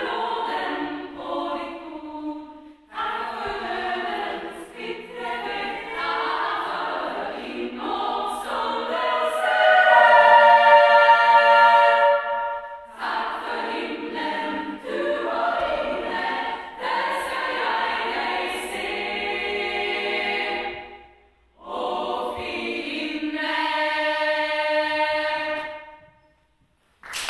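Women's choir singing unaccompanied in a church, in phrases with short breaks between them. It swells to a loud, held chord in the middle and dies away near the end.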